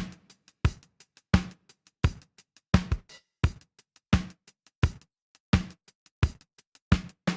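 Drum loop of single sharp hits spaced about 0.7 seconds apart, each with a short pitched thud, quickening into a run of closer hits near the end.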